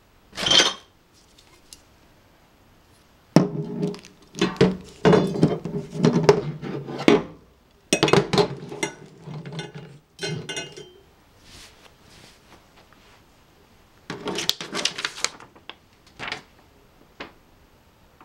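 White-coated metal tube frame of a rolling cart being handled and set down on a table, knocking and clinking against the tabletop and other parts: one knock at the start, then a busy run of clanks from about three to eleven seconds in, and another short flurry near the end.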